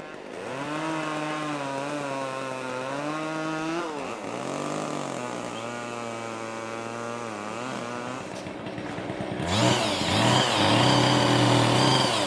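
Chainsaw engine running at part throttle with its pitch wavering, then revving up louder and harsher for the last few seconds.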